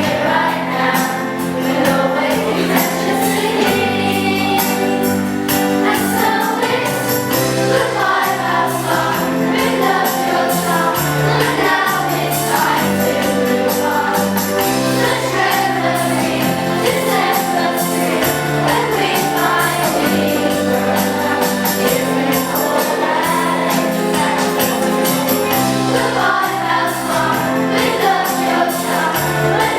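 Music: a song sung by a group of voices over instrumental accompaniment with a steady beat.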